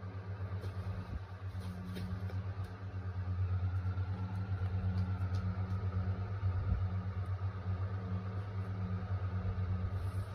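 A steady low machine hum, with a few faint clicks in the first few seconds.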